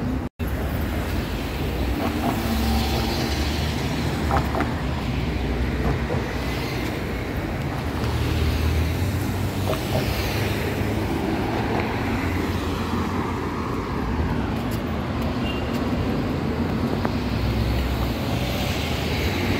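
Road traffic on a multi-lane city road: a steady rumble and hiss of car tyres and engines as cars pass.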